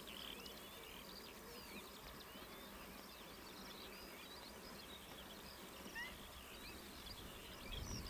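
Faint chorus of many birds calling at once: short chirps and whistled glides overlapping over a steady outdoor hiss.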